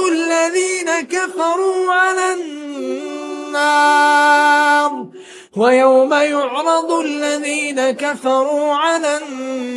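A man's solo voice reciting the Quran in melodic tajweed, drawing out long ornamented notes with no accompaniment, and a short break for breath about five seconds in.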